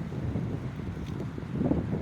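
Wind buffeting the microphone: an uneven low rumble that swells slightly near the end.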